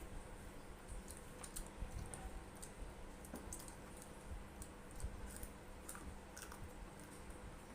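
Eating sounds of fried chicken and rice: soft, irregular clicks and smacks of chewing and mouth noises.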